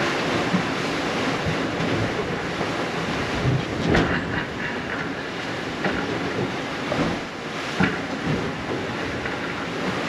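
Wind buffeting the microphone and water rushing past a Leopard 45 sailing catamaran beating upwind into waves, with spray and a few sharp knocks as the hulls meet the waves, the loudest about four seconds in.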